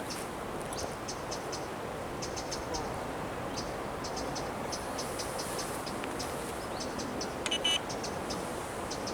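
Steady rush of flowing river water, with scattered clusters of short, very high ticks throughout and a brief higher chirping near the end.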